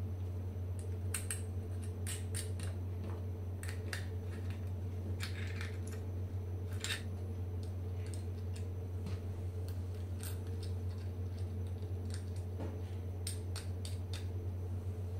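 Scattered small clicks and light clinks of hands fitting wired parts into a DIY guitar effects pedal enclosure, over a steady low hum.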